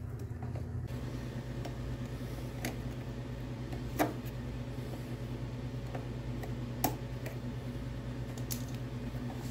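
Needle-nose pliers and metal footpeg hardware clicking as a pivot pin is worked into a motorcycle footpeg mount: a few sharp clicks, the two loudest about four and seven seconds in. A steady low hum runs underneath.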